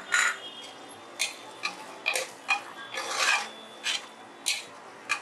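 Metal ladle scraping against the inside of an aluminium pressure cooker while stirring fresh green peas into thick cooked mutton keema: a string of about a dozen short scrapes, roughly two a second, with one longer drawn-out scrape about three seconds in.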